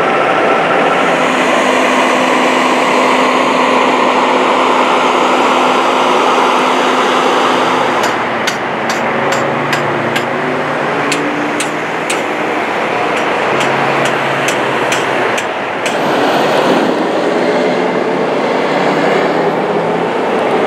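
Steady rumble of heavy vehicle noise, with a string of sharp clicks from about eight to sixteen seconds in.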